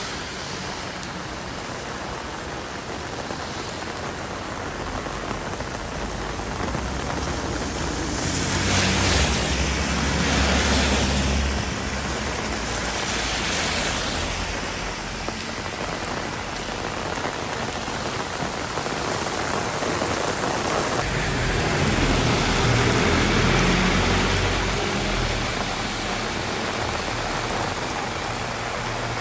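Heavy rain falling as a steady, dense hiss, with low rumbles swelling about a third of the way in and again near the end.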